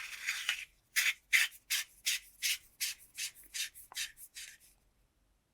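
Threaded tail cap being screwed back onto a flashlight body, the threads rasping. There is a short continuous rasp, then about a dozen short scraping strokes at about three a second that fade out near the end.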